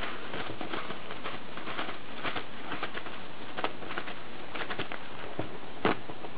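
Soft paper from a roll rustling and crinkling as a ground squirrel tugs sheets off and bunches them up, with irregular crackles and one sharper crackle near the end.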